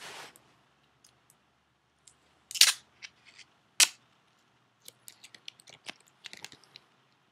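Hands handling an iPod touch and its plastic packaging: a short rustle at the start, two loud sharp clicks about two and a half and four seconds in, then a string of lighter clicks and taps.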